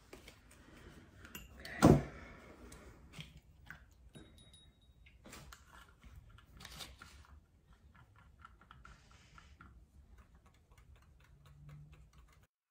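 Small clicks and taps of paintbrushes against plastic watercolour paint pans and a ceramic water cup, scattered and irregular, with a quicker run of light clicks in the second half. One much louder knock comes about two seconds in.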